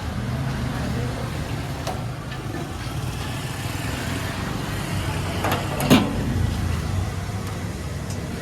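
Diesel engine running steadily with a low rumble, with one sharp knock about six seconds in.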